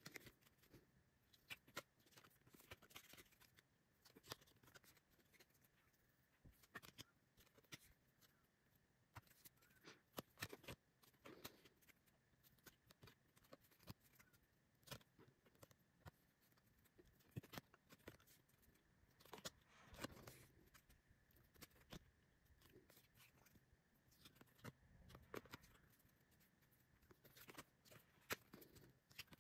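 Very faint clicks and soft taps of stiff photocards being handled and flipped one by one, at an irregular pace.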